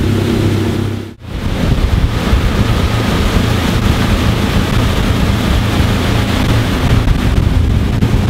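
Wind buffeting the microphone over the steady drone of a Galeon 360 flybridge cruiser's engines running at speed, with the rush of its wake. The sound drops out briefly about a second in.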